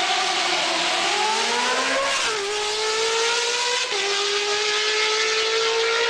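Motorcycle engine pulling through the gears: its note dips and then climbs, drops sharply at an upshift a little after two seconds in and again at about four seconds, and rises steadily after each shift.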